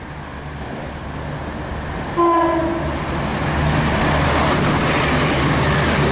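Chiltern Railways Class 168 diesel multiple unit passing through the station, running louder as it approaches. About two seconds in it gives one short horn blast on a single pitch, followed by the loud rumble of the engines and wheels on the rails as it goes by.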